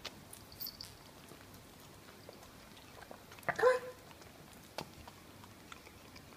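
Red dapple miniature dachshund licking and pulling at a raw lamb shank held in a hand, giving faint wet clicks of tongue and mouth on meat. A little past halfway comes one short, louder pitched sound.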